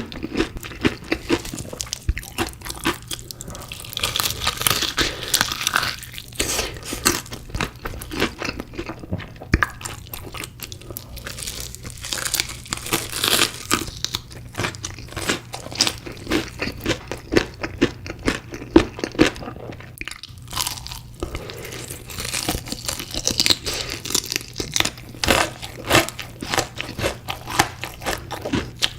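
Close-miked eating: crunchy bites and chewing of fried chicken pieces, a dense, irregular run of crackling crunches.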